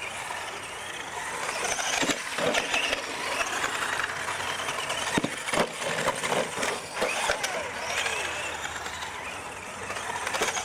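Several radio-controlled monster trucks racing on dirt, their motors whining up and down in pitch as they accelerate and slow, with tyres scrabbling on the loose dirt. Sharp knocks a couple of times as trucks hit ramps or tumble over, one truck rolling onto its roof.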